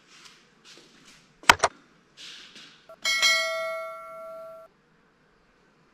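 YouTube subscribe-button animation sound effect: two quick clicks, a short whoosh, then a bell ding that rings for about a second and a half before cutting off.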